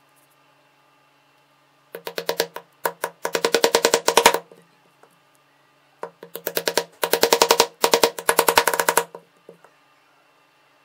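Small 12 V DC motor of a homemade mini wood lathe humming steadily. It is interrupted twice by a couple of seconds of rapid, even knocking at about a dozen strikes a second, as a tool chatters against the spinning wood.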